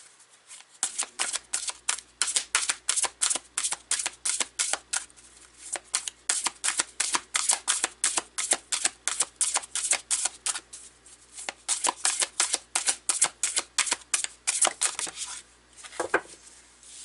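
A deck of oracle cards shuffled by hand: a long quick run of soft card flicks, about four a second, that stops about fifteen seconds in, then a single card laid down on the cloth.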